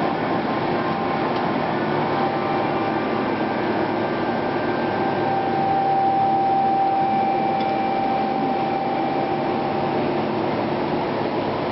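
Steady hiss and hum of TIG (argon arc) welding on a flexible metal tube, with a higher steady tone sounding from about five seconds in to about ten seconds in.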